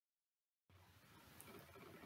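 Near silence: a dead-silent gap for well under a second, then faint room tone.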